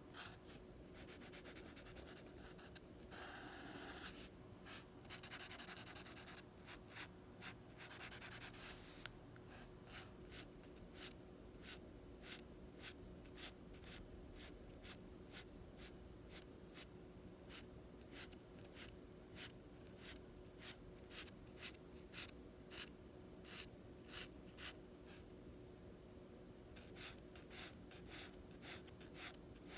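Drawing strokes scratching on paper: stretches of continuous scribbling or shading in the first nine seconds, then short separate strokes at a quick, fairly even pace.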